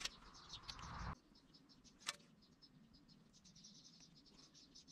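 Near silence with faint, rapid high chirping, about six chirps a second, from a small animal in the background. A brief rustle of handling in the first second and a single sharp click about two seconds in.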